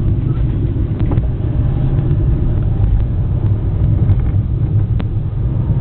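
Car driving, heard from inside the cabin: a steady low rumble of engine and tyre noise, with a couple of faint clicks.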